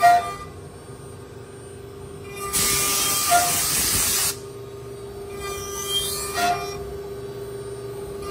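CNC router spindle running with a steady whine as its end mill cuts into a wooden block. About two and a half seconds in, the cut gets much louder, a hissing rush that lasts nearly two seconds before dropping back, with a few short tones from the machine now and then.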